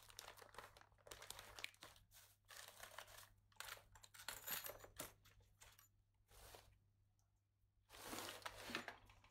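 Irregular crinkling and rustling of wrapping being handled, in short bursts, with a brief lull about two-thirds through before a last burst near the end.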